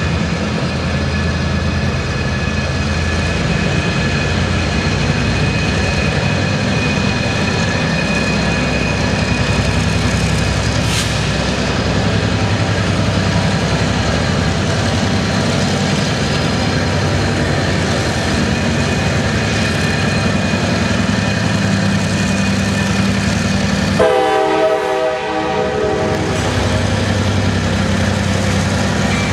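CSX diesel switcher locomotive running steadily as it hauls a train of trailers on flatcars, a continuous engine drone. A short horn blast sounds near the end.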